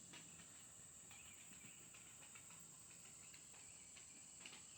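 Near silence with a faint, steady high-pitched insect chorus, like crickets.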